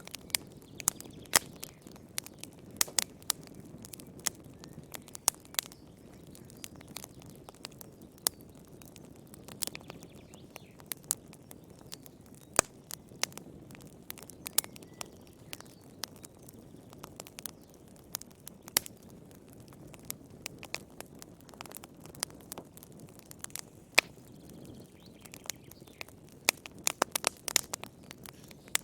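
Wood fire burning in a fireplace: a soft steady rumble of flames with irregular sharp crackles and pops throughout, growing denser near the end.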